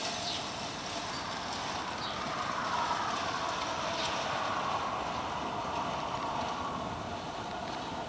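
Five-gang reel mower running steadily as it is towed across the grass, its spinning reels making a continuous mechanical whir and clatter.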